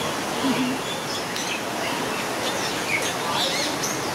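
Mixed aviary birds giving many short high chirps and whistles, busiest in the second half, over a steady rushing background noise.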